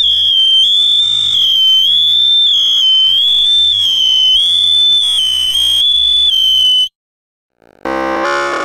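Loud, distorted, shrill electronic tone wavering up and down in pitch about twice a second, a comedy sound effect laid over the picture. It cuts off abruptly about seven seconds in, and after a second of silence synthesizer keyboard music begins.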